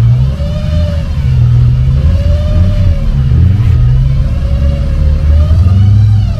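A car engine revved up and down again and again, its pitch climbing and falling about every two seconds, over a heavy low rumble.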